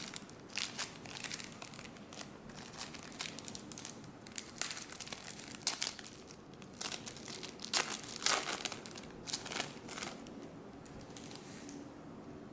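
Plastic wrapper of a trading-card packet crinkling and tearing as it is handled and opened: irregular crackles, loudest about two thirds of the way through, tapering off near the end.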